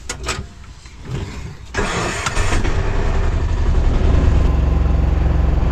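Auto-rickshaw engine running up suddenly about two seconds in, then running steadily and loud as the rickshaw drives off.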